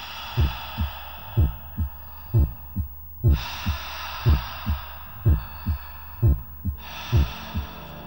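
Heartbeat sound effect: paired low thumps, a strong beat then a weaker one, about once a second, under a hissing shimmer that swells in three times and fades.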